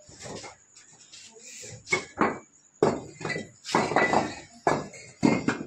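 Fired clay bricks knocking and clinking against each other as they are pulled off a stacked wall and dropped onto a pile, a series of sharp clacks that come more often from about two seconds in.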